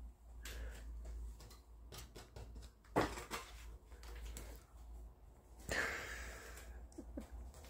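Soft scattered clicks, knocks and rustles of a cat climbing a rope net on a wooden climbing frame, with one sharper knock about three seconds in.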